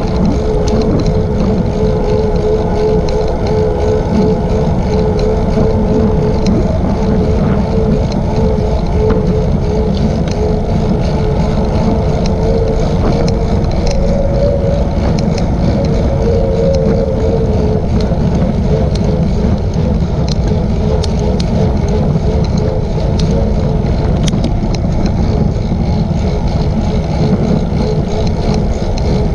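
Steady wind rush on the microphone of a camera moving along a paved trail at about 14 mph, with a constant wavering hum.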